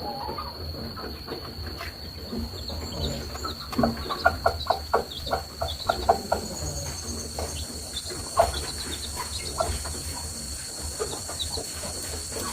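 Chickens clucking in short, irregular calls, with a quick run of clucks in the middle, over a steady high-pitched tone.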